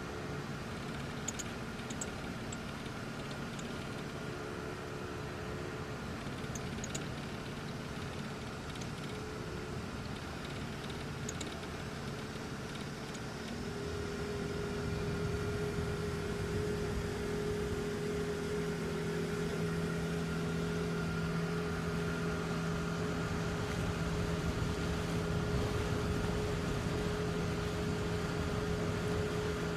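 A boat's engine running steadily; about 14 seconds in it speeds up a little and gets louder, then holds at the higher speed.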